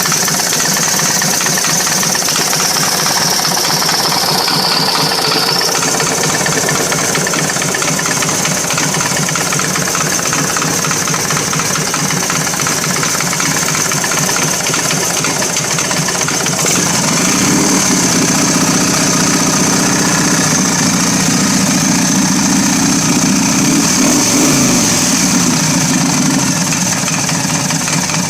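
S&S 80 cubic inch Evo-style V-twin motorcycle engine running, with a rapid rhythmic knocking that the owner is asking about and has not diagnosed. Its note gets fuller and slightly louder for several seconds past the middle, then settles.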